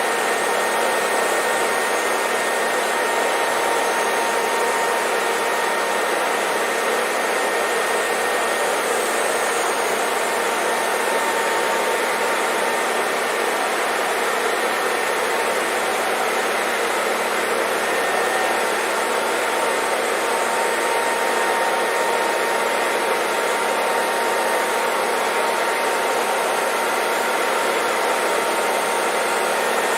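Hair dryer running steadily: an even rush of blown air with a faint, steady motor whine through it.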